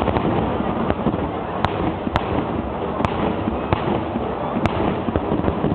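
Aerial fireworks shells bursting in a continuous rumble of booms, with a sharp crack standing out every half second to a second or so.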